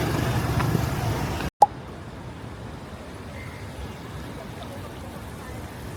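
Steady outdoor city noise with traffic. It cuts off abruptly about a second and a half in with a short gap and a click, then gives way to a quieter, even background hiss.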